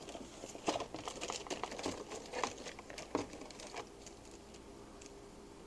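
Paper engine gaskets and their paper and cardboard packaging crinkling and rustling as they are handled and sorted, with small clicks, dying down near the end.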